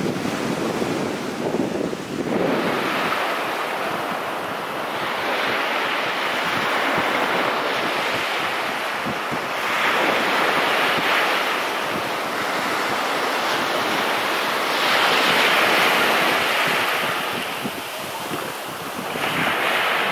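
Surf breaking and washing up onto a sandy beach, the rush of water swelling and easing off every few seconds, with wind buffeting the microphone.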